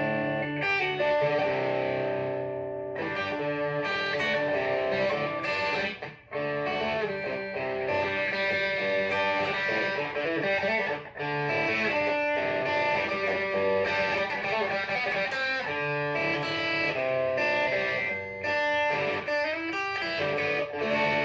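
Electric guitar played through the Boulevard Effects 3-in-1 preamp/compressor pedal into a Roland Cube 60 amp, with the guitar's volume knob rolled back from full gain. It plays sustained notes and chords, with brief breaks a few times.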